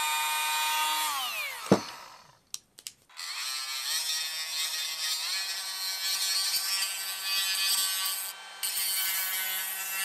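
A red cordless rotary tool grinding plastic, its high whine spinning down and stopping with a click about two seconds in. After a short pause a yellow DeWalt 20V cordless die grinder starts up and runs at high speed against a plastic part, picking up speed twice and briefly dropping near the end.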